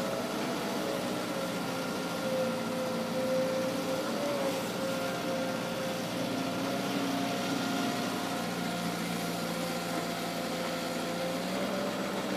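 Caterpillar crawler excavator's diesel engine running steadily while the machine digs earth and swings a bucket load, its note wavering slightly now and then.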